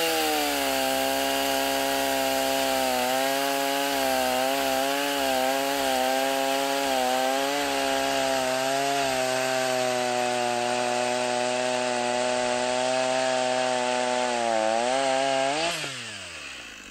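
Echo CS490 50.2 cc two-stroke chainsaw with an 18-inch bar cutting through a dry poplar log at full throttle, the engine note holding steady under load with slight dips. Near the end the pitch briefly rises as the chain breaks through, then falls away as the throttle is released.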